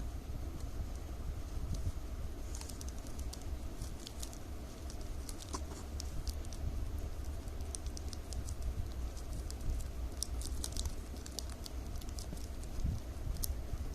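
Strips cut from milk-powder bags crinkling and clicking in the hands as they are folded and woven, in scattered quick crackles that bunch up about three seconds in and again about ten seconds in. A low steady hum runs underneath.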